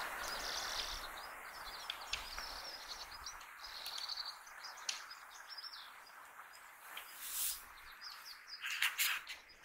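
Lesser redpoll calling: a run of short, high chirps with a brief trill about four seconds in, over a faint steady hiss.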